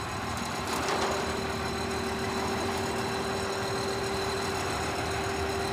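Concrete mixer truck's diesel engine idling steadily, with a steady tone running through it from about a second in.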